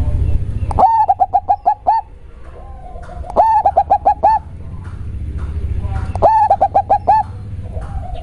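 Zebra dove (perkutut) singing three rhythmic cooing phrases, each a quick run of about five or six staccato notes, one phrase about every two and a half seconds.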